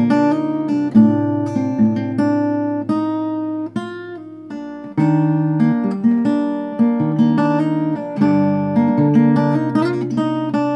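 Acoustic guitar with a capo played fingerstyle: picked bass notes under a melody, each note ringing and dying away. About four seconds in, the playing thins to a few soft high notes for about a second before the full pattern comes back.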